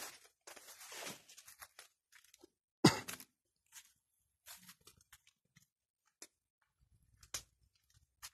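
Crunching and rustling of someone moving through dry leaves and undergrowth, with one sharp knock about three seconds in, then only scattered faint clicks.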